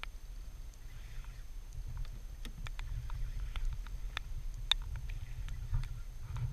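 Water lapping and knocking against a small boat's hull: irregular sharp ticks, a few a second, the sharpest a little past halfway, over a steady low rumble of wind on the microphone.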